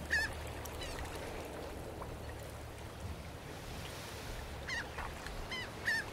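Seagulls crying in short calls, one at the start and a quick run of three or four near the end, over a steady low rumble of wind and sea.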